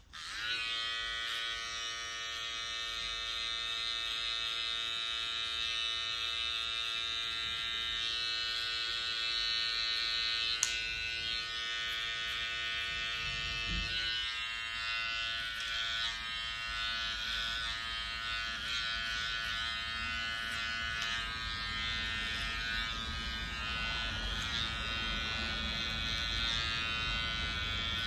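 Small electric detailing clipper switched on and buzzing steadily as it trims hair at the neck and around the ear. Its lower hum fades about halfway through. A single sharp click comes about ten seconds in.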